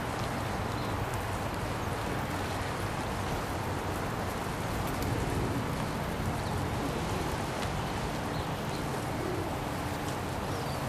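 Steady hiss with scattered faint clicks from a flock of feral pigeons feeding on a flat roof.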